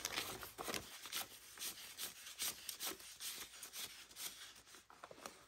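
Paper cards being flipped through and handled: a run of quick, irregular rustling and rubbing strokes.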